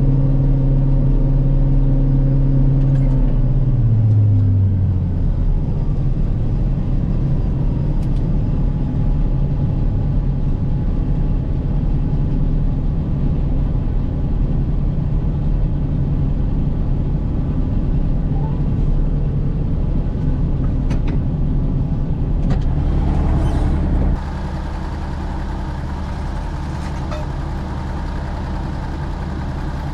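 Heavy diesel engine of farm harvest machinery running steadily. Its note slides down about four seconds in, and the sound drops suddenly to a lower, steady level near the end.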